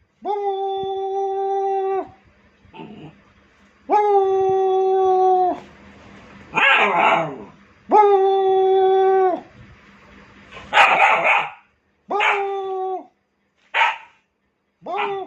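A dog howling in three long, level, held notes, with rough, harsh barks between them and several shorter howls near the end.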